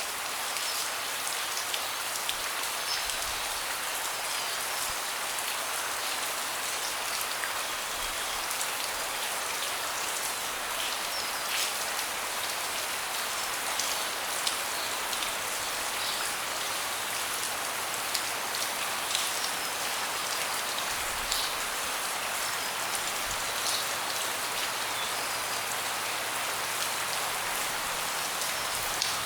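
Steady rain falling on a deck, with many separate drops ticking against the surface over an even hiss.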